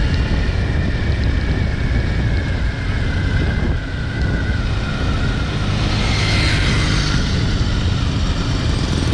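Steady low vehicle and road rumble with wind buffeting the microphone while travelling along a road. A faint falling whine runs through the first half, and a brief rush of noise comes about six seconds in.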